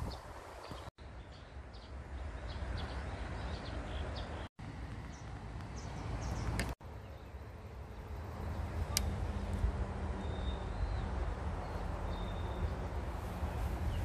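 Outdoor ambience: wind rumbling on the microphone with scattered bird chirps, and a low steady hum joining about halfway through. The sound cuts out briefly three times.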